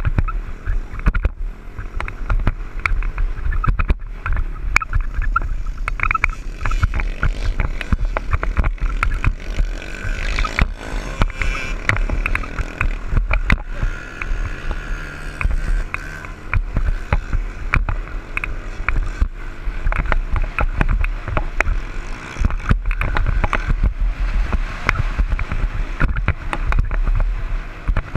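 Dirt bike engine running under throttle while riding across sand, heard through a helmet-mounted camera: heavy low wind rumble on the microphone with frequent knocks and thumps from the ride, the engine note rising and strongest about halfway through.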